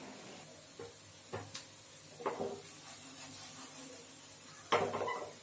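Kitchen utensil and frying pan knocking and clinking: several light knocks, then a louder clatter near the end.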